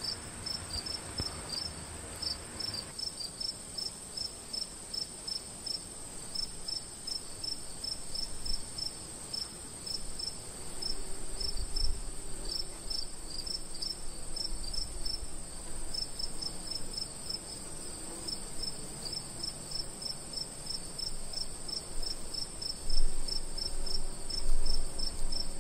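Crickets chirping in a quick, regular run of short chirps with brief pauses, over a constant high-pitched insect hum. A couple of low thumps near the end.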